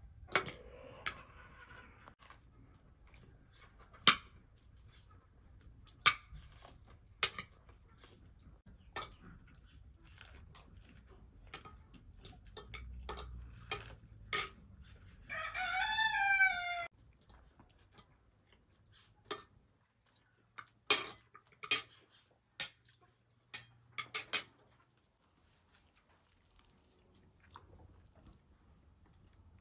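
A rooster crows once, a wavering call of about a second and a half, around the middle. Sharp clicks and knocks are scattered throughout.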